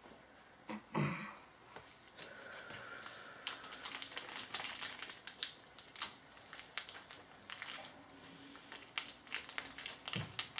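Foil wrapper of a trading-card pack being torn open and crinkled, a quick run of crackles and snaps that starts about two seconds in.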